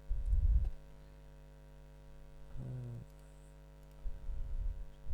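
Steady electrical hum on the recording, with low muffled rumbles near the start and again near the end.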